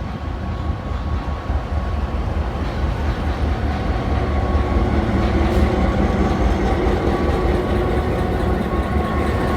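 A train running, a steady heavy rumble that grows a little louder, with a thin steady high tone over it.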